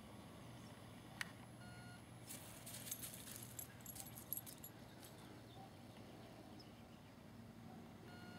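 Quiet outdoor background with a faint metallic jingling for about two seconds, starting a couple of seconds in, after a single click.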